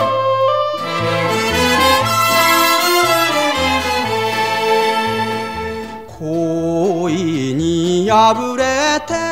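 Instrumental interlude of an enka song: a band carries the melody over a stepping bass line. About six seconds in the music dips briefly, then a melody line with wide vibrato comes in.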